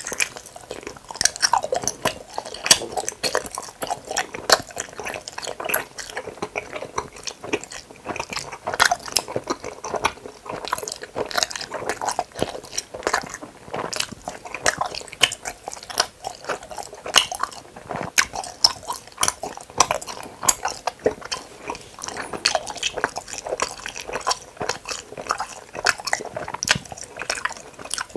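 Close-miked chewing and biting of gummy hamburger candies: sticky, wet mouth sounds made of many small, irregular clicks and smacks that go on without a break.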